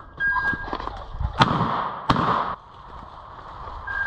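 Two shotgun shots fired at a flushed pheasant, about two-thirds of a second apart, the first about a second and a half in.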